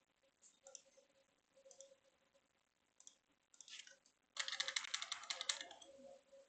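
Scattered clicks from a computer mouse and keyboard, then a fast run of clicking lasting about a second, a little past halfway through.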